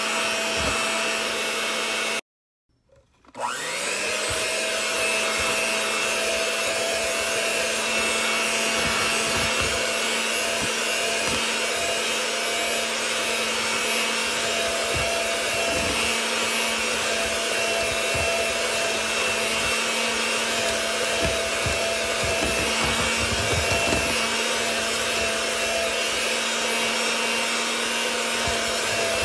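Electric mixer with a wire whisk beating cake batter, running at a steady speed with a constant whine. About two seconds in it stops for roughly a second, then starts again and its pitch rises as it spins back up to speed.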